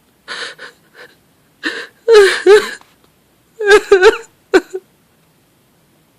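A woman sobbing: a few short breathy gasps, then two clusters of louder, wavering, pitched sobbing cries.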